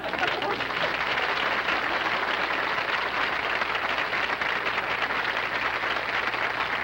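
Live studio audience applauding: dense, steady clapping that breaks out at once as the comedy bit ends.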